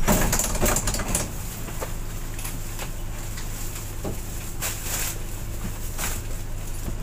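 Steady low engine hum heard from inside a vehicle as it slows to a stop and idles, with scattered light clicks and ticks.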